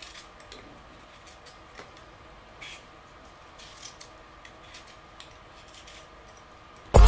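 Faint scattered clicks and light rustles from hands handling something close to the microphone, over low room tone. Electronic music comes in suddenly near the end.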